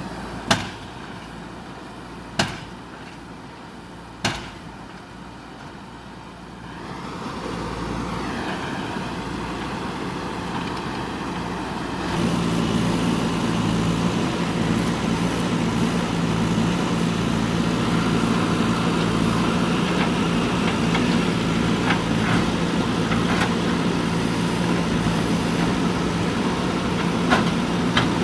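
JCB 3DX backhoe loader's diesel engine, running low at first with three sharp knocks of the bucket on concrete. It then climbs and, about twelve seconds in, settles into a louder steady working run under load.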